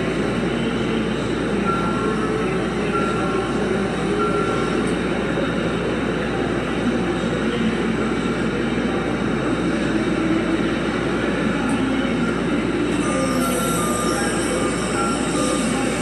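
Sanki 100-ton hydraulic spotting press running with a steady mechanical rumble as its slide-out bolster travels out on its rails, with a warning beeper giving short high beeps about every second or so.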